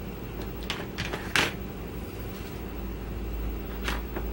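A few short clicks and taps from small objects handled at a table, the loudest about a second and a half in, over a steady low hum.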